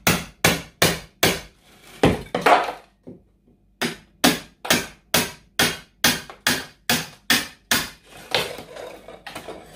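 Hammer striking a chisel to knock ceramic hearth tiles off a plasterboard wall: a run of sharp blows about three a second, with a short pause about three seconds in and a rougher, continuous crunching stretch near the end.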